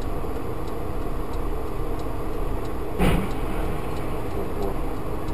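Steady road and engine noise of a moving vehicle, with a single short thump about three seconds in.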